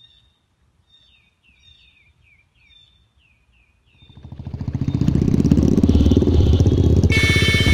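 Faint bird chirps, short falling notes repeated, then a motorcycle engine swells up about four seconds in and runs loud and steady. A high steady tone joins near the end.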